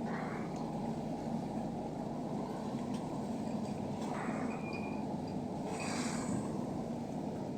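A boat's engine running steadily, with water splashing in brief surges three times.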